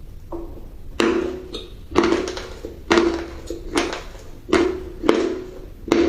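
Close-miked crunchy chewing: a sharp crunch about every second, each fading quickly, as a person bites and chews something crisp.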